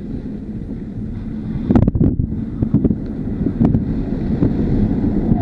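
Low rumble of tyre and wind noise inside an electric Tesla driven at speed, with no engine sound, and a cluster of sharp knocks and thumps about two seconds in.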